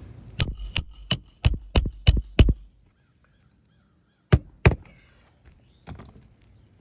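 Hammer driving a roofing nail through an asphalt shingle: a quick run of seven sharp strikes, then two more after a short pause. The nail is not sinking flush.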